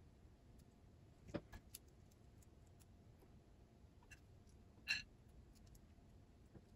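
Near silence broken by a few small clicks and taps: a quick cluster a little over a second in and one sharper click about five seconds in.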